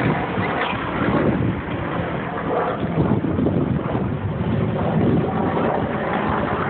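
Steady rumbling street noise with wind buffeting a phone's microphone.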